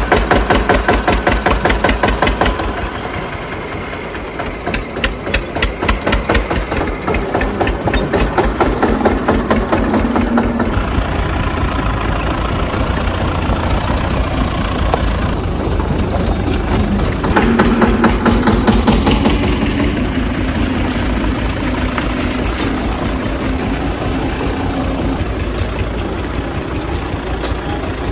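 Diesel engines of an Eicher 242 tractor and a Tata Sumo Gold running, with a quick, even knocking beat throughout. The sound dips slightly a few seconds in and swells again for a few seconds past the halfway mark.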